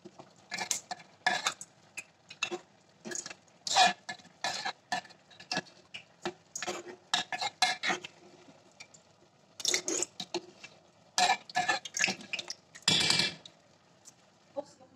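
A spoon stirring a thick curry sauce in a metal pot, knocking and scraping against the pot's sides and bottom in quick, irregular strokes. There is a short pause near the middle and one longer scrape near the end.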